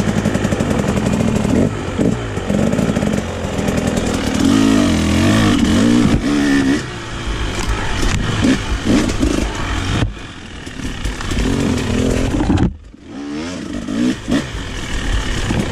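Dirt bike engine running and revving as the bike rides along, its pitch rising and falling with the throttle. The sound drops away suddenly for a moment about thirteen seconds in, then picks up again.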